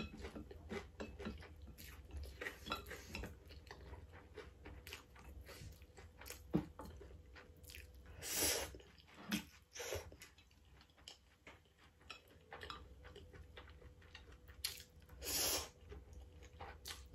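A person eating Samyang spicy instant noodles with chopsticks: wet slurping and chewing, with small clicks of the chopsticks against the bowl. A few louder slurps come about eight, ten and fifteen seconds in.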